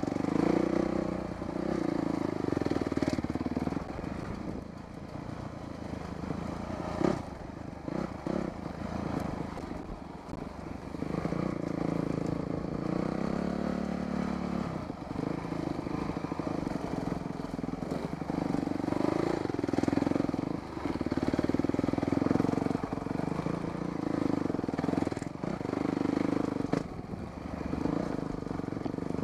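Dirt bike engine running with revs rising and falling as the throttle is worked over rough ground, dropping back to a lower, quieter note a few times. A sharp knock comes about seven seconds in, with some rattling.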